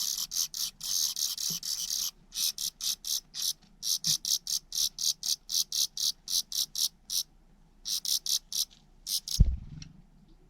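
Nestlings begging in the nest: a rapid, even run of high-pitched calls, about four to five a second, which pauses briefly and stops near the end as a parent bird feeds them. One loud thump comes just after the calling stops.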